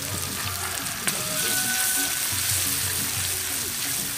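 Garlic and other aromatics sizzling as they are stir-fried in hot oil in a pan, a steady high-pitched hiss. A single sharp knock about a second in.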